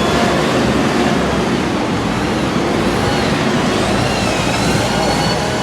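Steady, loud din of road traffic on a busy city street, with a few faint wavering high tones above it.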